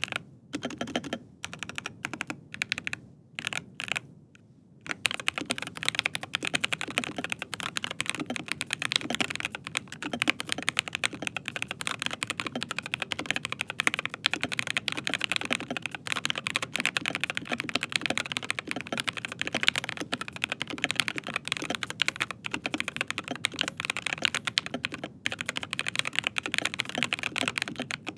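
Typing on a Rapture Charlie mechanical keyboard with Gateron G Pro 3.0 Red linear switches: short clusters of keystrokes at first, then fast continuous typing from about five seconds in.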